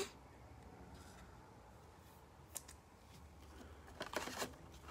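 Faint handling noise of a trading card being slid into a clear plastic sleeve: a light tick about two and a half seconds in and a short crinkling rustle near the end.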